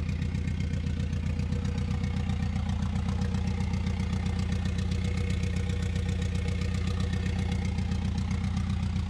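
Turbocharged GM Ecotec four-cylinder engine idling steadily.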